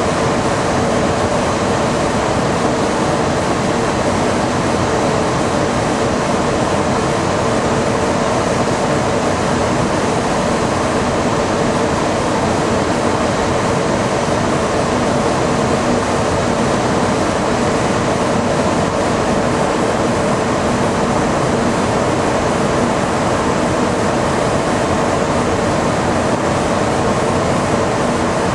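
Steady flight-deck noise of an Embraer 175 airliner on final approach: an even rushing of air with a faint steady hum underneath.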